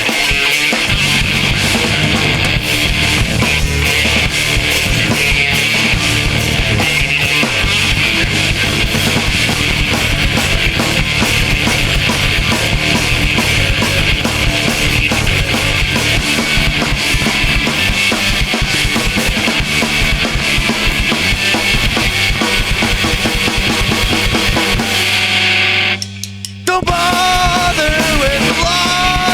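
A live punk rock band playing loud and fast, with the drum kit to the fore. Near the end the band cuts out for about a second, leaving a single low held note, then crashes back in.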